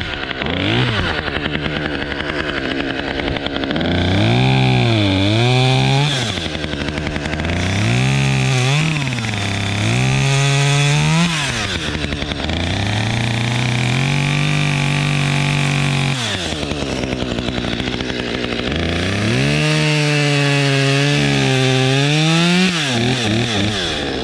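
Chainsaw engine throttled up and down repeatedly, about five times, held at high speed for a few seconds in the middle while cutting into the tree.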